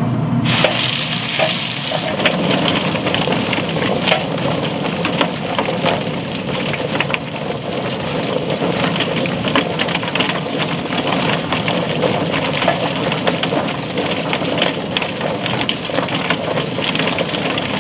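Drum-style chicken plucker running with a scalded chicken tumbling against its rubber fingers while a garden hose sprays water into the spinning drum. The water starts with a sudden hiss about half a second in, and a dense, irregular clatter runs through it.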